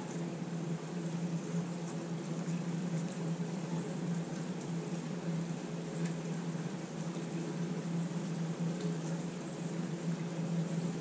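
A steady low hum that does not change, with a faint hiss over it and a few light ticks.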